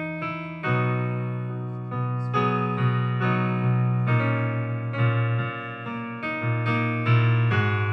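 Piano-style keyboard music, sustained chords struck one after another, a new chord about every second.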